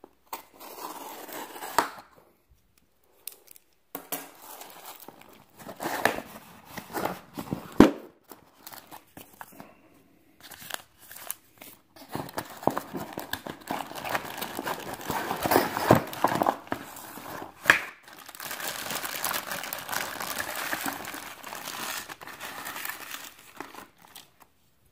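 Unboxing noises: a cardboard box slit open with a serrated pocket knife and handled, with scattered clicks and rustles. In the second half, plastic packaging crinkles steadily as LED light bars are pulled from their bags.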